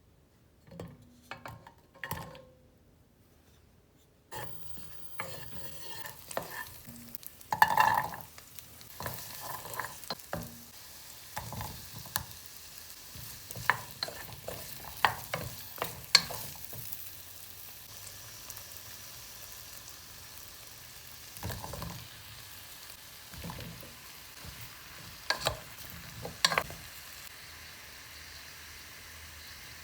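Chopped vegetables frying in a pot, starting to sizzle a few seconds in, while a utensil stirs them and knocks and scrapes against the pot.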